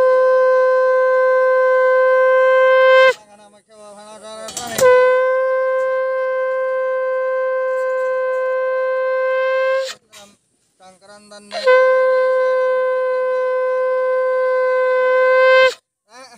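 Conch shell (shankha) blown in three long, steady blasts on one note, with short breaks between them, sounded as part of a Hindu puja.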